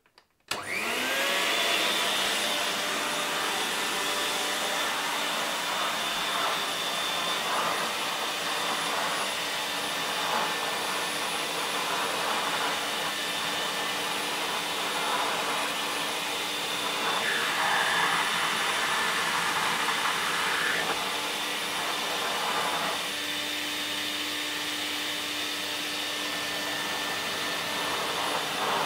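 VAX 121 multifunction vacuum cleaner switched on about half a second in, its motor spinning up with a rising whine and then running steadily. The rush of air turns brighter for a few seconds past the middle, and the motor's tone shifts slightly after that.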